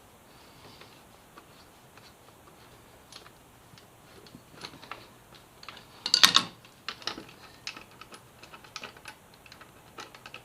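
Light metallic clicks and clinks of a hand tool working a bolt out of a motorcycle's rear-set bracket, scattered and irregular, with a louder clatter about six seconds in.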